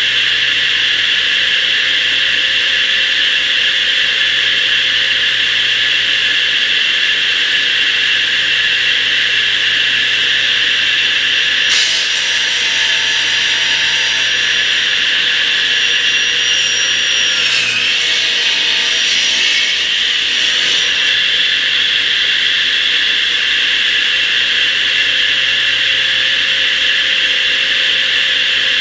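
Loud 16-inch DeWalt radial arm saw with an Amana blade running at full speed with a steady high whine. About twelve seconds in the blade is pulled through a thick wood slab, adding a harsh cutting noise for about nine seconds, then the saw goes back to spinning free.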